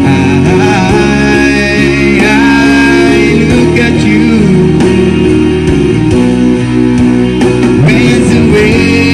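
A pop ballad's karaoke backing track with guitar, played loud through a portable tower speaker, with a voice singing the melody over it.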